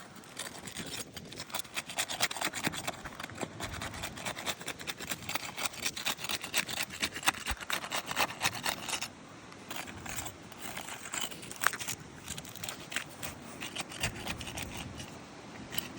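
Asphalt shingle tabs being pried up to break their sealant strips: a long run of rapid scrapes and clicks that eases off about nine seconds in, then comes back in scattered strokes.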